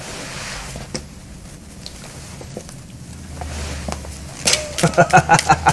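Quiet room tone with a low steady hum and a few faint clicks; about four and a half seconds in, a person's voice starts up in short, quick pulses.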